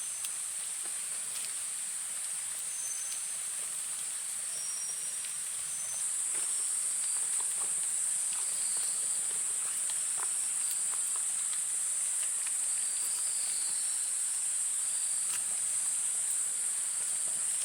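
Insects droning in one continuous high-pitched tone that grows louder about six seconds in, with short high notes repeating over it.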